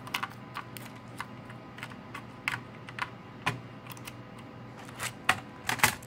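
Irregular plastic clicks and taps of a Dell Latitude D830 laptop being reassembled, its keyboard and ribbon cable handled and pressed into place. The clicks come a few at a time, with a quick cluster of louder ones near the end.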